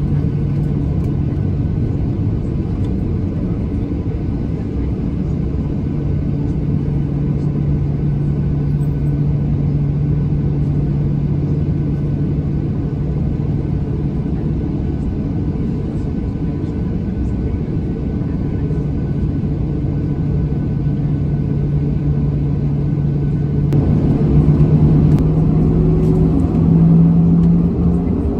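Cabin noise inside a taxiing Boeing 737-800, its CFM56-7B engines at low taxi power giving a steady hum over a rumble. About 24 seconds in, the noise grows louder and the engine note rises in pitch near the end.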